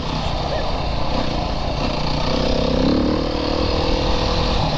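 Yamaha YZ450FX dirt bike's four-stroke single-cylinder engine running on a wooded trail, its note climbing a little past halfway as the revs rise.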